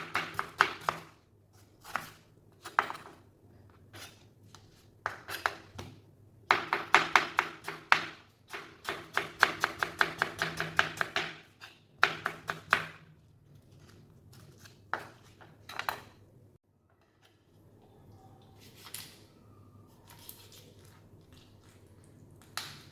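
A kitchen knife chopping on a cutting board in quick runs of sharp strokes with short pauses between them. The strokes thin out to a few faint taps in the last several seconds.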